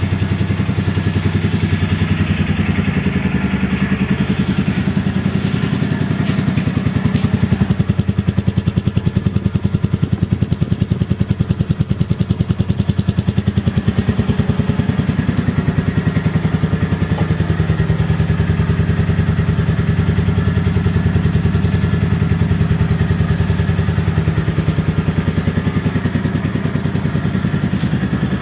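Royal Enfield Meteor 350's single-cylinder 349 cc engine running steadily at idle, its exhaust giving an even beat of pulses, with some echo from the garage around it.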